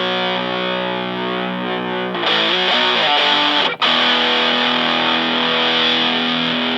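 An electric guitar (Fender Stratocaster) played through a PineTop Distortion pedal into a Fender Blues Junior amp, letting distorted chords ring. There is a change of chord about two seconds in and a short break just before four seconds. The tone turns brighter partway through as the pedal's treble control is turned up.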